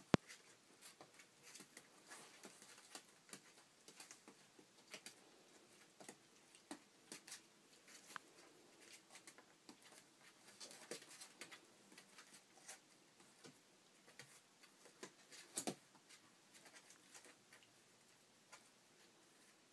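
Faint, irregular ticks and light taps of Shetland sheepdog puppies' claws and paws on a hard floor, with a sharp click just at the start and a short cluster of louder knocks late on.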